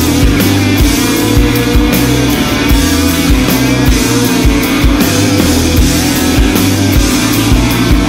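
Rock music with a steady beat of about two thumps a second.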